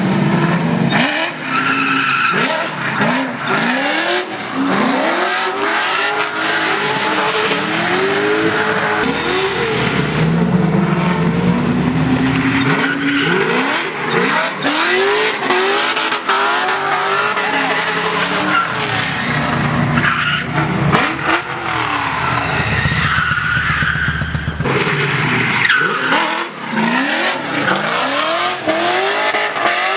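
LS V8-swapped Nissan 240SX (S13) drifting, with the engine revving up and falling back again and again and the rear tyres squealing and skidding throughout.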